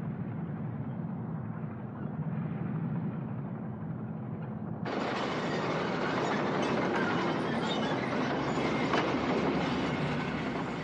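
Rumble of a military column on the move: armoured car and truck engines with the tramp of marching soldiers. It is a steady low rumble at first, then about five seconds in it turns suddenly louder and fuller as the column is heard close up crossing a steel bridge.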